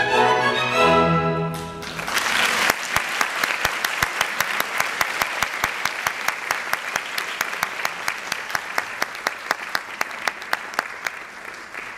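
Orchestral string music ends about a second and a half in, and audience applause follows. One nearby clapper's sharp, even claps, about four a second, stand out above the rest, and the applause thins out near the end.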